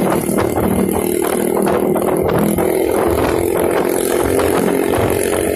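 Motorcycle engine running at a steady cruising speed, with a constant rattle from the bike.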